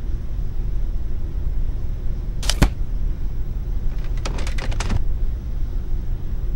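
A low steady rumble with a single sharp crack about two and a half seconds in, then a quick run of several clicks about a second later.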